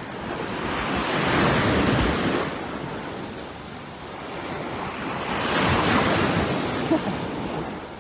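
A rushing noise that swells and fades twice, about four seconds apart.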